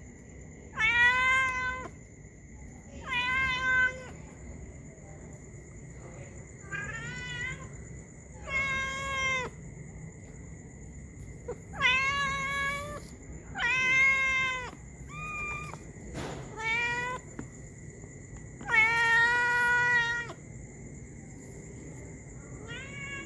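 Domestic cat meowing repeatedly to beg for food: about ten drawn-out meows a second or two apart, the longest one coming near the end.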